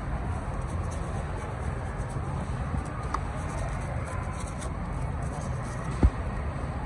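Knife cutting and scraping through the soft flesh of a halved jackfruit, with small scratchy clicks and one dull thump about six seconds in, over a steady low background rumble.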